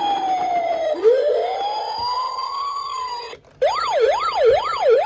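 Toy ambulance's electronic siren: a slow wail that falls and then climbs again, breaks off briefly about three seconds in, and restarts as a fast yelp swooping up and down about twice a second.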